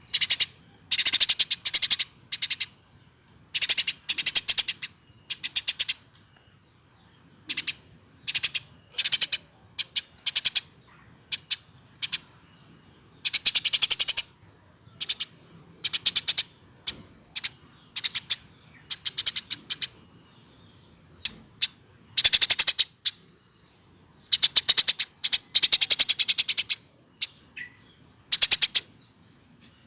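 Eurasian tree sparrow singing in a long series of bursts of fast, repeated chirps, each burst lasting up to about two seconds with short pauses between. This is the full chattering song of a mature bird.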